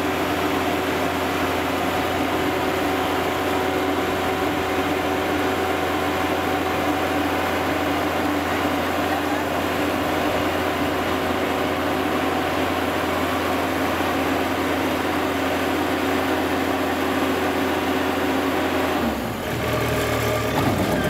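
Rice combine harvester's diesel engine running steadily at a constant speed; near the end its note changes and the level dips briefly.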